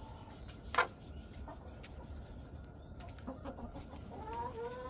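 Backyard chickens calling: hens clucking, with a drawn-out call rising in pitch near the end. A sharp click about a second in is the loudest sound.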